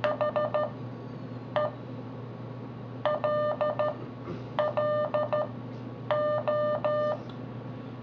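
AE Morse tutor app on a Droid phone playing the word "HELLO" in Morse code through the phone's speaker: a steady beeping tone keyed as four dits, one dit, then dit-dah-dit-dit twice, and three dahs to close.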